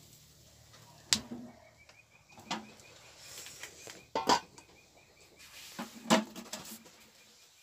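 Metal knocks of cookware: a ladle and an aluminium pot lid clanking on the pots over a wood fire, four times, the loudest a double clank about four seconds in. A faint, rapid, even chirping trill runs behind from about two and a half seconds in.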